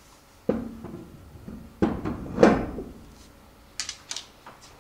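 A Monte Carlo wheel with its tyre being set onto the hub studs: a few dull clunks and knocks, the loudest about two and a half seconds in, then some light metallic clicks near the end.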